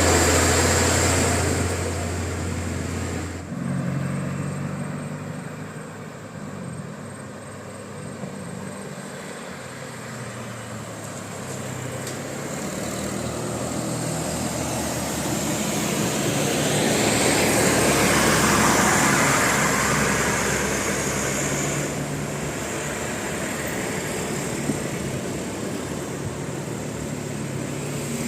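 Road traffic: vehicle engines running, with one vehicle swelling louder and passing about two-thirds of the way through. The sound changes abruptly twice.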